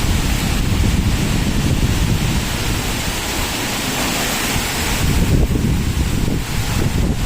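Heavy wind gusting steadily through coconut palms, its fronds rustling, with strong wind buffeting on the microphone.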